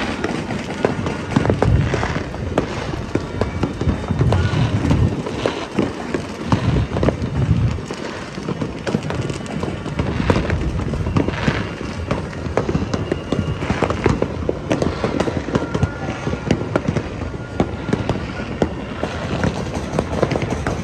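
New Year fireworks and firecrackers going off without a break: a dense stream of sharp cracks and pops, with deep booms in the first several seconds.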